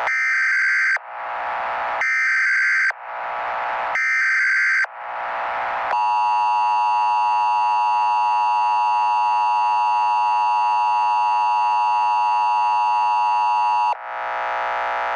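Emergency Alert System broadcast tones: three one-second bursts of SAME header data, each followed by a short fading hiss, then the steady EAS attention signal held for about eight seconds. About a second before the end, the attention signal cuts off and a harsher, noisier tone takes over.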